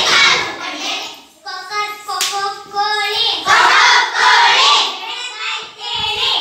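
A group of young children singing and chanting together in unison, with one sharp clap about two seconds in. After the middle, many voices join in loudly at once.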